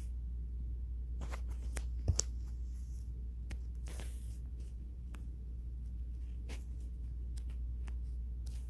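Steady low hum with scattered faint clicks and taps, the sharpest about two seconds in.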